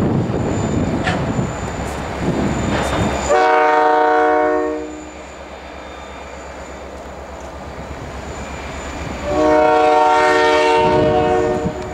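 Canadian National diesel locomotive sounding its air horn twice: two long blasts of about a second and a half each, a few seconds apart. The engine's low rumble runs beneath and between them.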